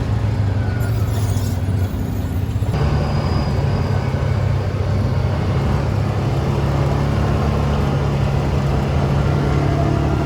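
ATV engine running steadily under way, a low drone whose pitch steps up a little about three seconds in.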